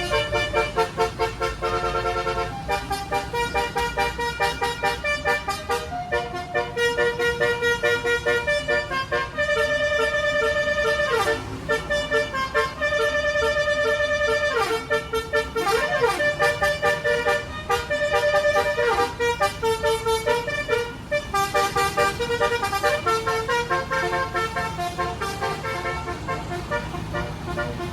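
Basuri multi-note bus air horn playing a telolet melody: fast, stuttering horn notes that hop from pitch to pitch, with a few sliding swoops around the middle.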